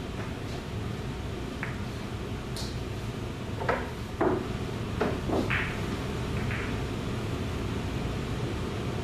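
Pool balls clicking against each other and being set down on the table as they are taken out of a corner pocket: a handful of short, sharp knocks about midway, over a steady low hum.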